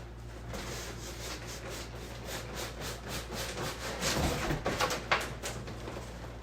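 Packaging being handled and opened, with continuous rubbing and scraping and a cluster of louder scrapes and knocks about four to five seconds in.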